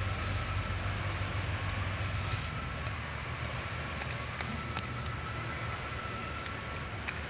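Y-shaped vegetable peeler scraping skin off a bottle gourd in short strokes, with a few sharp clicks about four to five seconds in, over a steady low rumble.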